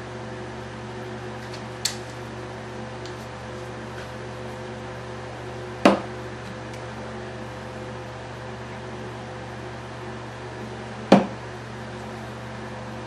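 Steady machine hum, like a fan or appliance running, with a light tick about two seconds in and two sharper clicks about five seconds apart.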